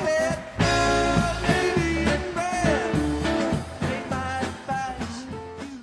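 Rock song with a singing voice over a steady bass line, fading out near the end.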